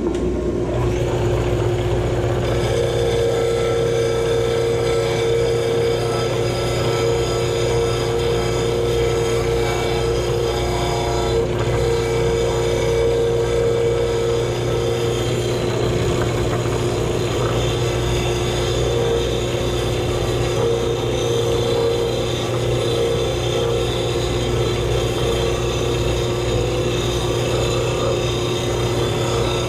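Combination belt-and-disc sander running steadily while the rounded end of a wooden dowel is pressed against the spinning sanding disc to sharpen it to a point. The scrape of the sanding rises and falls in places over the motor's steady hum.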